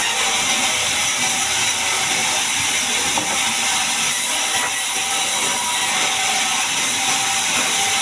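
Sawmill bandsaw cutting through a large mahogany log: a steady, unbroken hiss of the blade running through the wood.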